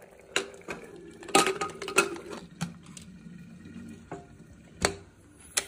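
Aluminium pressure cooker lid being fitted and closed: a series of sharp metal clanks and clicks, about eight in all, loudest about a second and a half and two seconds in.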